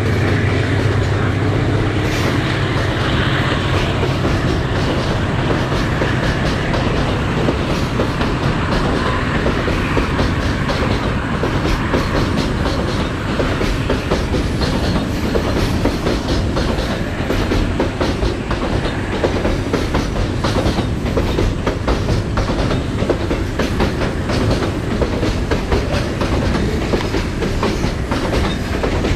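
Freight train wagons rolling past below, with a steady rumble of wheels on rail and a rapid clickety-clack of wheels over rail joints that grows busier about halfway through.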